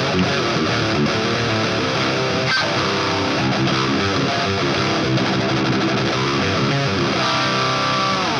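Heavily distorted electric guitar playing a fast, chugging metal riff through the Grindstein HM2-style 'Swedish chainsaw' distortion plugin at its load-up default settings. Near the end it settles on a held chord that rings out.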